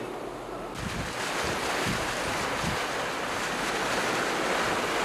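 Floodwater rushing through a breach in an earthen embankment: a steady, heavy rush of churning water that swells about a second in, with low rumbles underneath.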